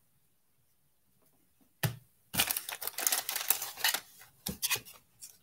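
Foil wrapper of a baseball card pack being torn open and crinkled by hand: one sharp tick about two seconds in, then about two seconds of dense crackling, and a few scattered crinkles near the end.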